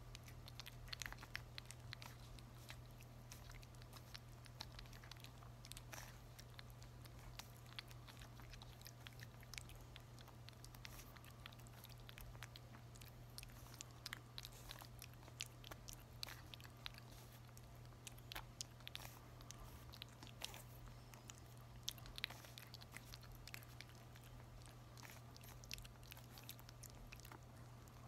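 A 33-day-old merle puppy licking and mouthing soft weaning mush from a hand: many faint, irregular wet clicks and smacks, over a low steady hum.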